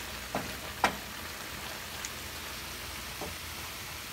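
Sausage, peppers and onions sizzling steadily in a stainless skillet, with two light knocks of a wooden spatula against the pan in the first second.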